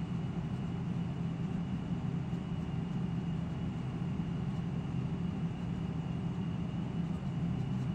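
A steady low mechanical hum with a faint high whine above it.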